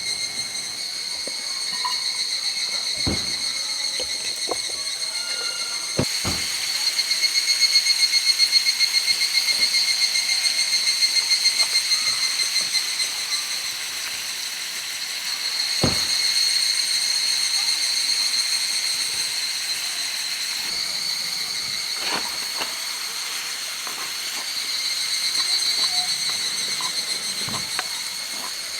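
Summer insects singing in a steady, high, pulsing chorus that swells and eases off, broken by a few sharp clicks and knocks.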